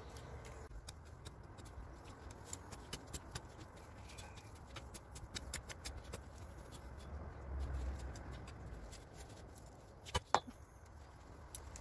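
Garden hoe chopping and scraping through soil: a run of light knocks and scrapes, with two sharper strikes about ten seconds in.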